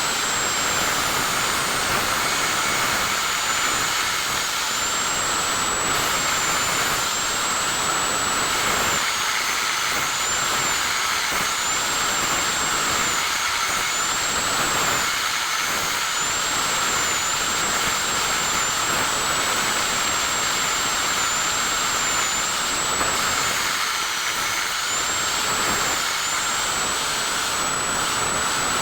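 Steady, unbroken blowing hiss from a small motor-driven blower, with a thin high whine that wavers slightly in pitch.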